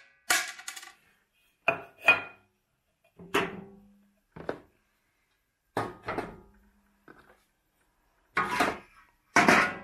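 Fabric-wrapped metal and wooden poles and copper coins being handled in an old metal pot and on a wooden table: a string of separate knocks and clinks with short pauses between, a couple of them leaving a brief low ring.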